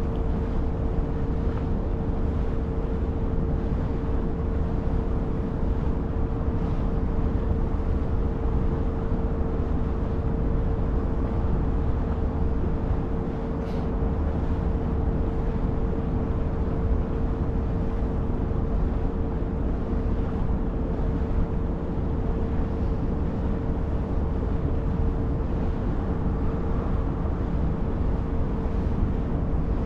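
A ferry's engine running: a steady low drone with a constant hum over it.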